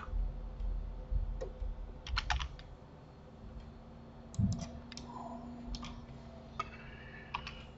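Computer keyboard keys being pressed in scattered clicks: a quick cluster about two seconds in, then single taps, with a soft low thump near the middle.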